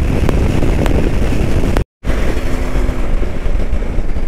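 Motorcycle on the move: the engine runs under a heavy rush of wind on the microphone, with the sound cutting out completely for a split second just before two seconds in.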